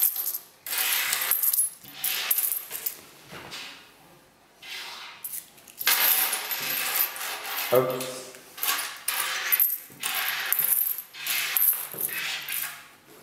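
Swiss 10-Rappen coins clinking and sliding against one another on a wooden table, in repeated bursts with short pauses between.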